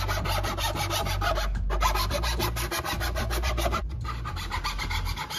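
Flat metal hand file rasping in quick, repeated strokes across a 3D-printed plastic fuselage, smoothing down glued joints. There is a short break a bit under two seconds in, and the filing stops about four seconds in.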